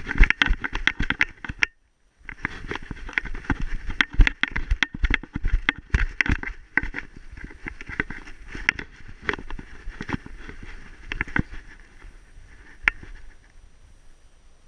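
A dog running down a snowy slope: its paws make rapid, irregular crunching and thumping in the snow, jolting the harness-mounted action camera. The sound drops out completely for about half a second just before two seconds in. Near the end the strokes thin out and fade as the running eases.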